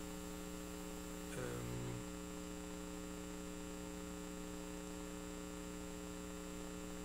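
Steady electrical mains hum with many overtones from the room's sound or recording system, and a brief low vocal murmur about a second and a half in.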